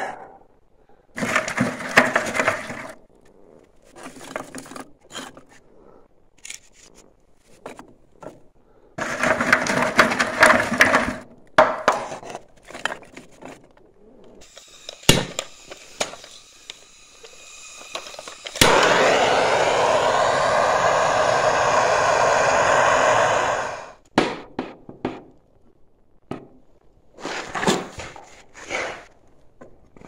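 Kindling and split wood being handled and broken in a steel wood-stove firebox: bursts of scraping, cracking and knocking. Later a sharp click opens a loud steady hiss that lasts about five seconds and cuts off suddenly.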